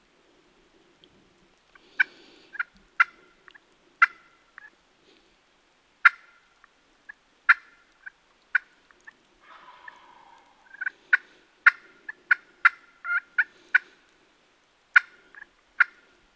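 Wild turkeys calling: a string of short, sharp, irregularly spaced clucks and cutts, with a rattling gobble about ten seconds in.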